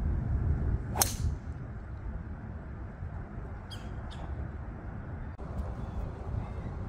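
Golf driver, a Titleist TS4, striking a teed ball about a second in: a single sharp crack. Wind rumbles on the microphone throughout, with a couple of short bird chirps about four seconds in.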